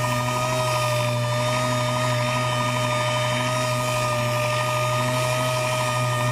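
Power sander running steadily with a constant whine and low hum, sanding down excess cured fiberglass with 80-grit paper.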